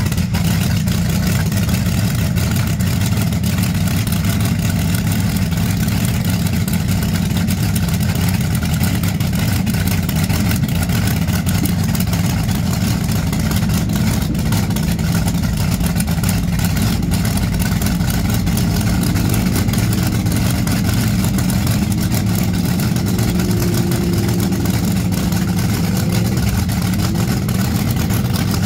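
1980s rear-engine dragster's engine idling steadily, freshly started: a loud, even, low-pitched running sound with no revving.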